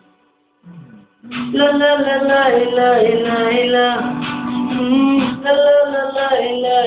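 A man singing a Hindi film-song melody into a handheld microphone over guitar-backed music. It comes in about a second in, after a short near-silent gap, and the sound is dull, with no treble.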